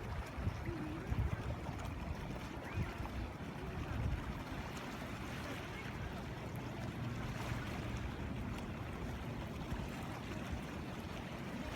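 Wind buffeting the microphone in low, uneven gusts, over a steady wash of small waves on the shore.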